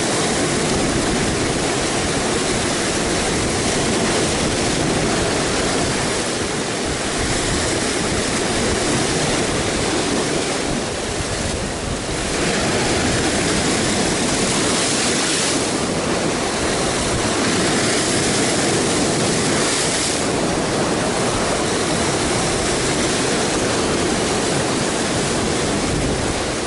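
Rough sea surf breaking and foaming over shoreline rocks: a continuous rushing wash whose hiss rises and falls as the waves come in.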